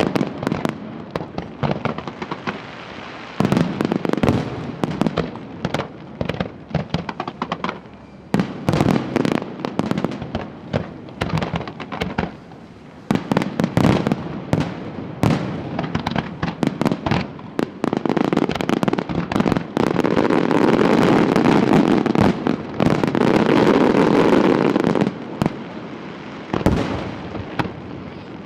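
Fireworks display: a rapid, irregular run of sharp bangs from bursting aerial shells. About two-thirds of the way in comes a dense, unbroken stretch of crackling and bangs lasting about seven seconds, then single bangs again.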